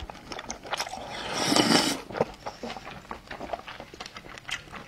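Close-up eating sounds from a person taking in a sesame-sauce-coated slice of fatty beef: a wet slurp through the lips about one and a half seconds in, followed by a run of small wet chewing clicks and lip smacks.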